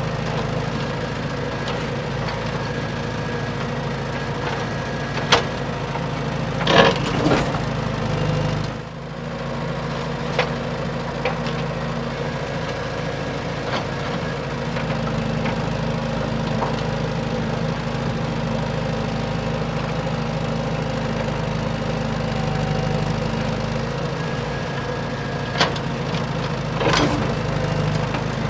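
Small electric motors of an RC excavator running steadily with a constant hum, dipping briefly about a third of the way through. Several sharp cracks or knocks come through, twice in close pairs.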